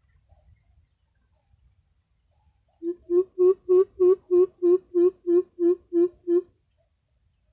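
Greater coucal call: a series of about a dozen deep hoots, evenly spaced at about three a second, starting about three seconds in. A faint high insect drone runs underneath.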